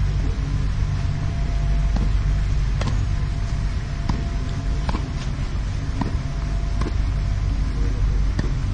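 A tennis rally on a clay court: sharp racket hits on the ball and ball bounces, about one a second, over a steady low background rumble.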